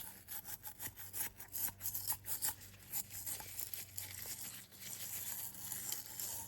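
A metal tool scraping quick, scratchy strokes over a 37 mm projectile's fuse threads, clearing out old glue that the acid has softened.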